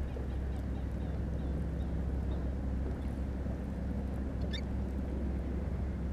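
Steady low hum of a fishing boat's motor over wind and water noise, with a brief high chirp about four and a half seconds in.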